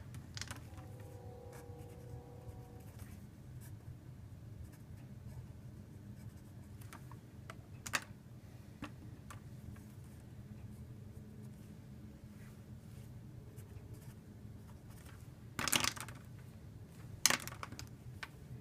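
Faint scratching and tapping of handwriting on a writing surface over a low steady hum, with a few sharper clicks about eight seconds in and twice near the end.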